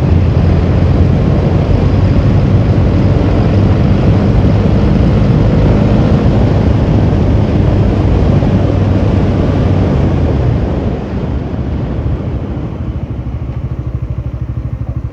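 Bajaj Dominar 400's single-cylinder engine running on the move, with wind rushing over the microphone. The sound drops to a lower level about eleven seconds in.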